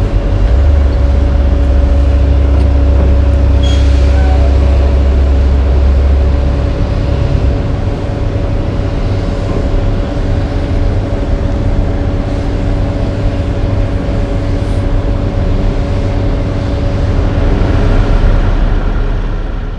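Heavy diesel dump trucks and an asphalt paver running steadily, with a deep engine rumble that eases about seven seconds in and a steady hum over it.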